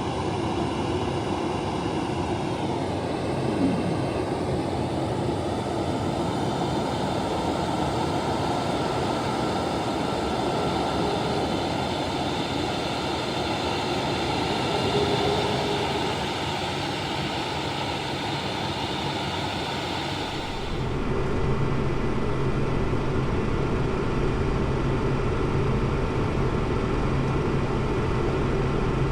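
KC-135 flight-deck noise: a steady rush of jet engines and airflow, with a tone falling in pitch a few seconds in. About 21 seconds in the sound changes abruptly and becomes heavier and deeper.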